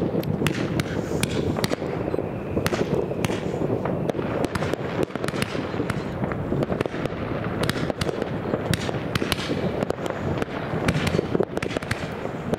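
Fireworks going off thickly: many sharp bangs and pops overlap without a break over a continuous low rumble, as a fireworks battery fires comets upward in a fan.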